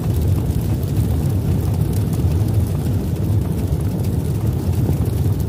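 Deep, steady rumbling sound effect of an animated smoke-burst logo intro.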